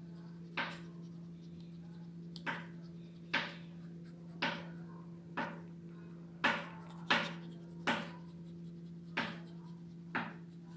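A tired Chihuahua breathing loudly in sharp huffs, roughly one a second at an uneven pace, each fading quickly. A steady low hum runs underneath.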